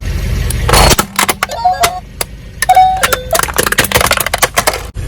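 Things crushed under a car's tyre: a dense run of cracks, snaps and crunching, with two short ringing pings about two seconds and three seconds in.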